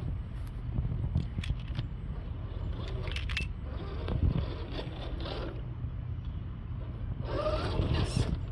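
Redcat Gen 8 Scout II RC crawler driving over rough ground: scattered scrapes and clicks from the tyres and chassis, with wind rumbling on the microphone and a brief wavering whine near the end.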